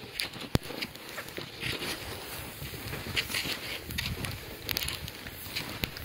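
Cross-country skis sliding and crunching on snow, with irregular sharp clicks and crunches of ski poles planting, on snow that is sticky and slow after rain.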